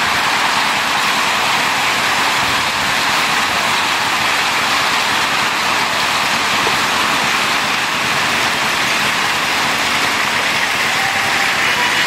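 Heavy rain pouring down onto pavement and rooftops, a steady, even hiss.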